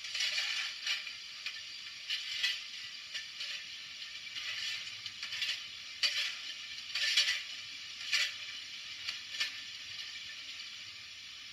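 Minitrix N-scale BR 01 steam locomotive model running with its sound decoder on: thin, small-speaker steam hissing and chuffing mixed with the whirr and clatter of the model's gears and wheels, in irregular bursts that die away about two seconds before the end.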